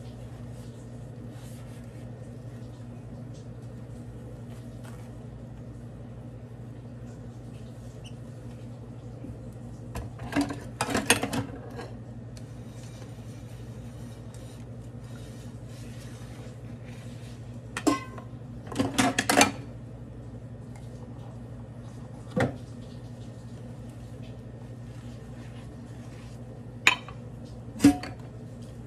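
Dishes being hand-washed in a stainless steel sink: ceramic plates and cups clink and clatter against each other and the sink in a few short bursts, with two sharp clinks near the end, over a steady low hum.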